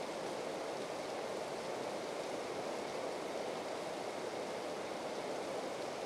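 Steady rush of running water, an even, unbroken noise with no other sound standing out.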